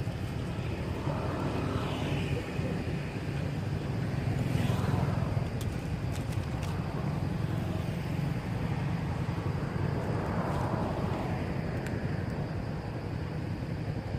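Motor vehicles passing on a road: a steady low rumble, with three vehicles swelling past and fading, about a second in, near five seconds and about ten seconds in.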